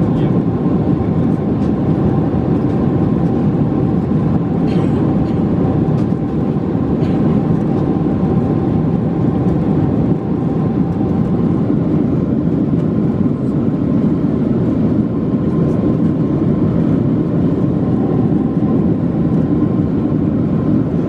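Steady cabin noise inside a Boeing 747-436 near the wing: the Rolls-Royce RB211 engines running evenly, a deep rushing sound with two faint steady whining tones above it.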